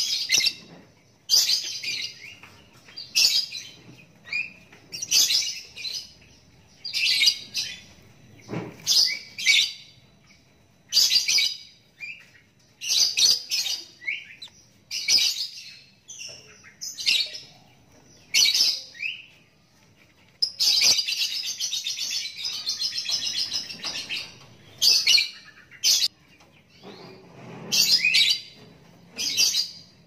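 Young lovebird chick giving short, high-pitched chirping calls over and over, about one every second or two, with a longer unbroken run of calls about two-thirds of the way through.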